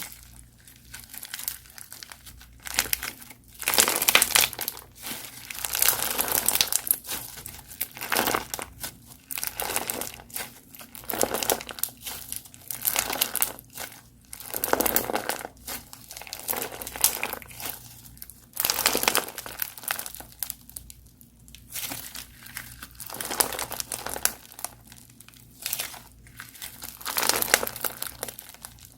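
Crunchy slime being squeezed, stretched and poked by hand, giving dense crackling and popping in repeated bursts with short pauses between them.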